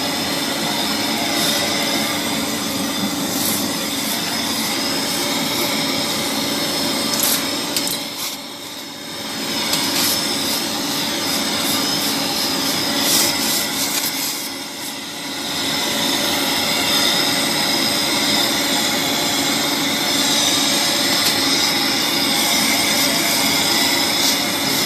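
Automatic pole welding machine working: a continuous crackling hiss from the welding arc over a steady machine hum. It dips briefly twice, about 8 and 14 seconds in.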